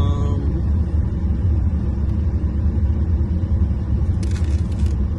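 Steady low rumble of a car heard from inside its cabin. About four seconds in there is a brief crackle from the paper receipt being handled.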